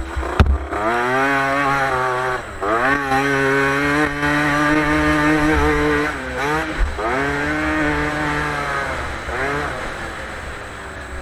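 Motocross bike engine revving under hard acceleration, its pitch climbing and then falling back three times as the throttle comes off and on, with a sharp knock just after the start. Wind buffets the microphone.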